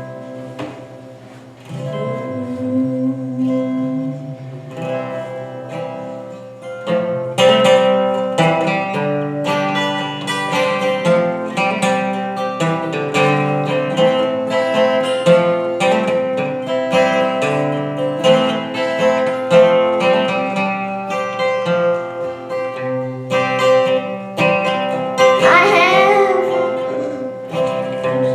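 Guitar music with picked notes over a steady bass line, growing fuller about seven seconds in; a wavering held note rises above it near the end.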